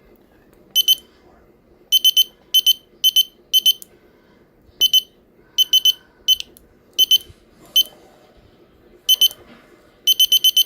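Small electronic alarm clock kit's piezo buzzer giving short clusters of two or three high beeps at irregular intervals, as when its buttons are pressed to set it. Near the end it breaks into a fast, steady beeping alarm, about eight beeps a second.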